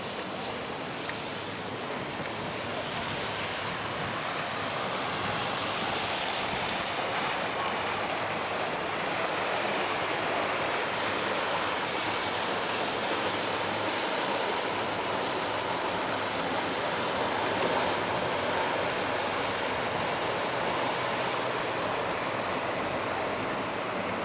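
Sea waves washing onto a beach: a steady rushing hiss that slowly swells and eases.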